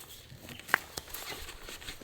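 Light handling noises of camp gear: scattered soft ticks and rustles, with one sharper click about three quarters of a second in.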